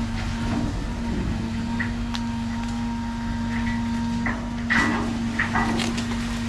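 A heavy machine's engine running steadily, with several sharp knocks and cracks from the brush being handled, the loudest about five seconds in.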